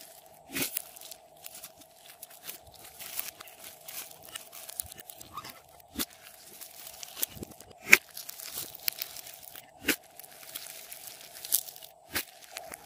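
Hands squeezing and kneading fluffy slime, a run of crackly squishing with irregular sharp pops, a few of them much louder.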